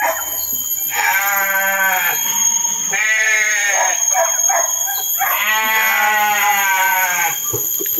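Newborn puppies crying: three long, wavering cries, each rising and then falling in pitch, the last and longest about two seconds.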